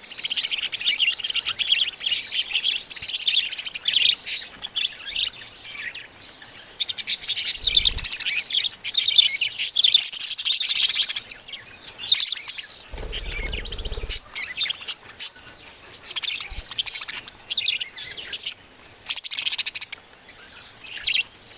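Baby budgerigars (budgie chicks) chirping in rapid, high-pitched bouts, broken by short pauses.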